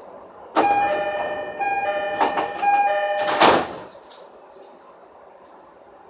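JR East E231 series train door cycling: a two-tone door chime sounds three times over the sliding door's motion, then a loud clunk comes about three and a half seconds in. The chime has the odd sound that the title flags as abnormal.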